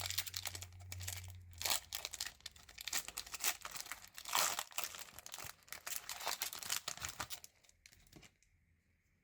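Foil wrapper of a Pokémon trading-card booster pack crinkling and being torn open by hand, in irregular crackles that stop near the end.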